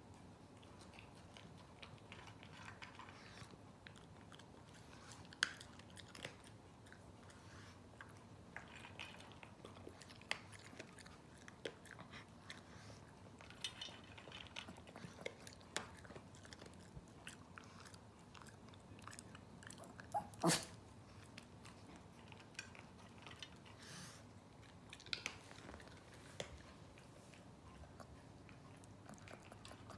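A Pekingese crunching dry kibble from a stainless steel bowl: irregular, sharp, faint crunches, with two louder clicks, one about five seconds in and one about twenty seconds in.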